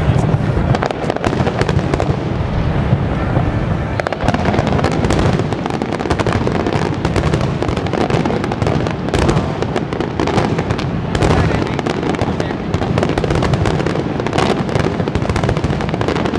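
Fireworks finale barrage: aerial shells bursting in rapid succession, with the booms running together into a continuous, loud rumble and sharper bangs standing out on top.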